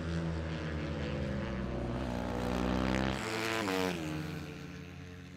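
Pré-Moto 3 racing motorcycle engine running at high revs along a straight. Its pitch drops a little over three seconds in, and it then fades as the bike goes by.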